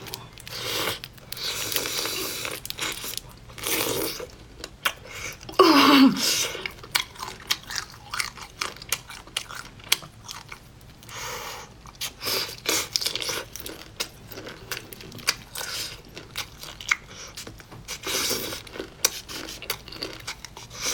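Close-up biting and chewing of tanghulu, candied hawthorn on a skewer: the hard sugar glaze cracks and crunches with each bite, followed by repeated chewing. A short, loud falling squeal about six seconds in.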